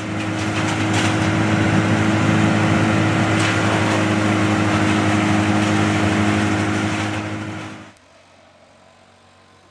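A small petrol engine running at a steady pitch under a dense hiss. It builds over the first second and cuts off abruptly about eight seconds in.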